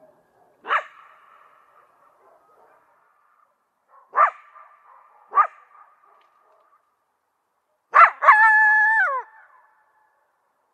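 Jackal calling: three short sharp yelps a second or more apart, then a yelp followed by a held, level wail about a second long that falls away in pitch at the end.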